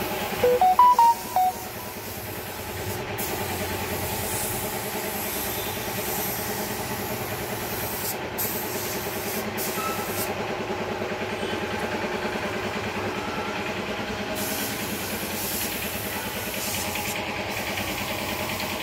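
A machine running with a steady drone and hiss, with a few short high beeps about a second in.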